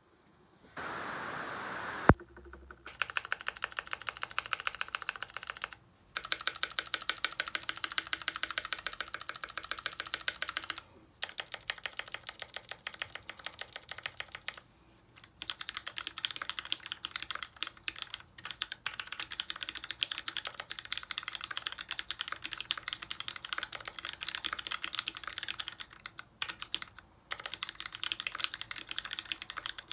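A 60% mechanical keyboard with lubed vintage Cherry MX Brown tactile switches, typed on fast in long runs of clicks with short pauses between them. A brief hiss ends in one sharp click just before the typing starts.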